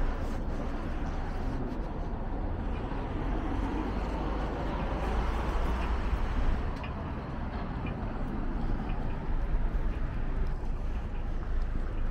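Street traffic noise: a steady wash of cars on the road, with a strong low rumble underneath.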